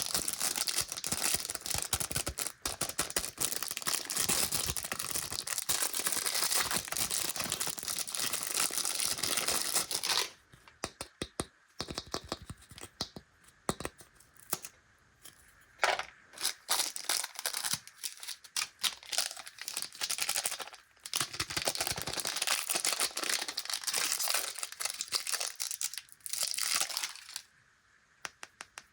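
Plastic candy packaging crinkling and tearing as a snack packet is handled and ripped open by hand. There are long stretches of dense crinkling, broken in the middle by a few seconds of scattered crackles and clicks, and it falls quiet near the end.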